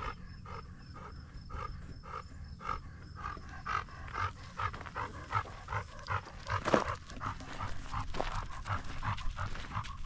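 A dog panting close to the microphone in an even rhythm of about two to three breaths a second. There is one sharp knock about seven seconds in.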